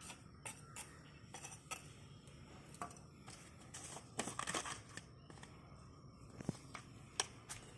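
Light handling noises: a small spoon scraping and tapping in potting soil, then a plastic jar's screw lid twisted off with a short scratchy rasp about four seconds in, followed by a few sharp clicks.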